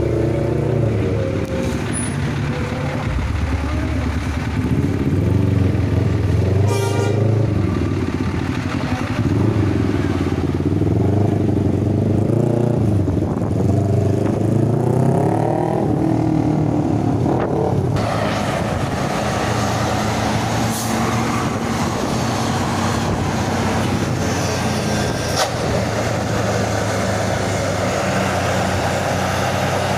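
Tour bus diesel engine running, its note rising as it accelerates about halfway through, followed by steady engine and road noise.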